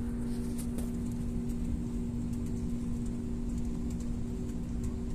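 Steady drone inside an airliner cabin on the ground: a low rumble with a constant hum, with a few faint clicks of handling near the phone.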